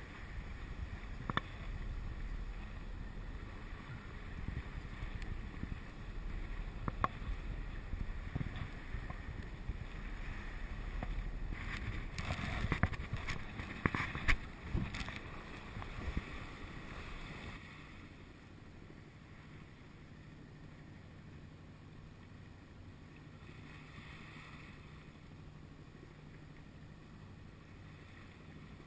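Wind buffeting the microphone and water washing past a moving sailboat, with scattered clicks and a few louder gusts. About two-thirds of the way through the sound drops to a quieter rush with a steady low hum.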